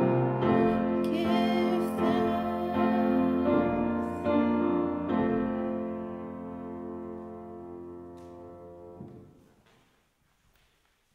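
The end of a song: a woman sings her last phrase over piano, then a final piano chord rings and fades away, stopping about nine seconds in. A few faint taps follow in the quiet.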